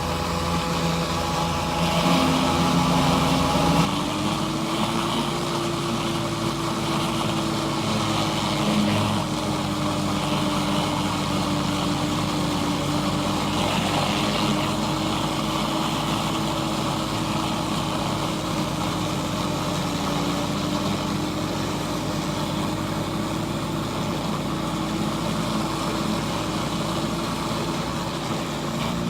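Pressure washer engine running steadily under load, with the hiss of water spraying from a surface cleaner onto concrete. The engine's pitch steps up slightly about four seconds in, then holds.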